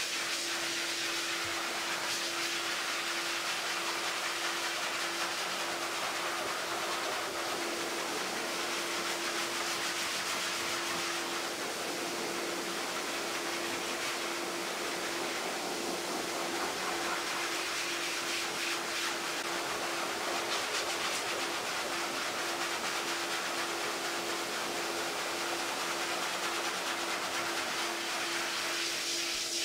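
High-velocity pet grooming dryer running steadily, a loud even rush of air from its hose and nozzle over a constant motor hum, blowing loose undercoat out of a wet double-coated dog.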